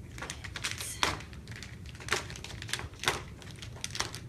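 Rummaging through a bag: an irregular run of rustles, crackles and sharp clicks as packaging is handled. The loudest snaps come about a second, two seconds and three seconds in.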